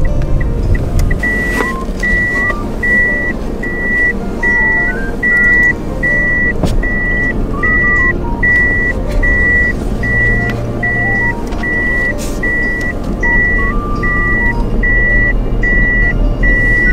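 Car's in-cabin reverse warning chime beeping steadily while the car backs up, about five evenly spaced high beeps every four seconds, over a low engine hum.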